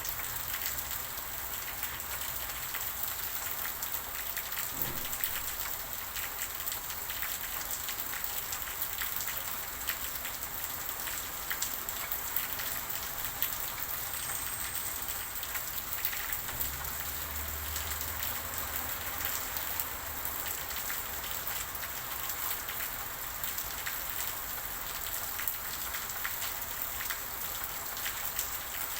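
Steady rain falling, with many individual drops ticking on a surface. A faint low rumble runs for a few seconds midway.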